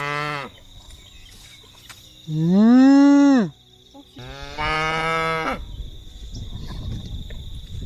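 Calf mooing back and forth with a man who moos at it in imitation: three long drawn-out moos, the middle one the loudest and highest-pitched.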